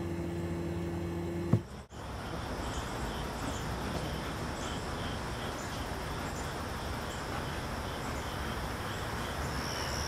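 Outdoor ambience with a steady background hiss and an insect chirping in a regular pulse, roughly one or two chirps a second. A steady low hum cuts off suddenly about two seconds in, before the chirping starts.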